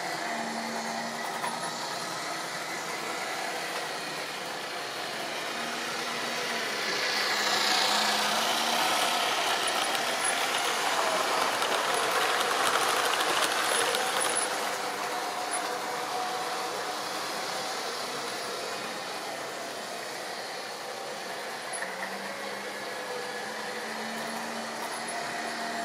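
Model railway train running: the hum of its electric motor and its wheels running on the track. It grows louder as a rake of green coaches passes close by, is loudest in the middle of the stretch, then fades away.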